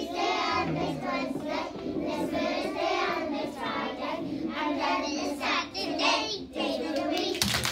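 A class of young children singing a song together, with a couple of hand claps near the end.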